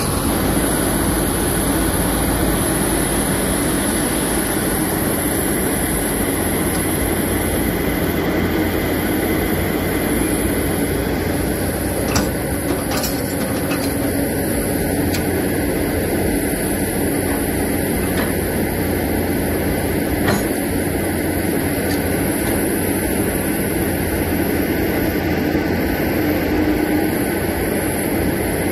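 Heavy diesel engine running steadily as a loaded multi-axle dump truck drives away over a dirt site, with a few faint knocks about halfway through.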